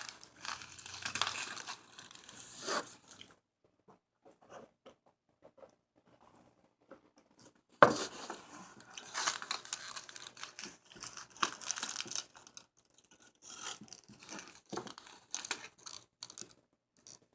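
Paper burger wrapper crinkling and rustling in bursts while a burger is eaten. There is a sharp knock about eight seconds in, then more crinkling.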